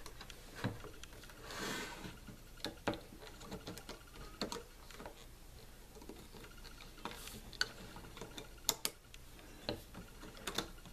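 Faint, irregular clicks and ticks of a plastic hook knocking against the pegs of a plastic bracelet loom as rubber bands are hooked and looped over.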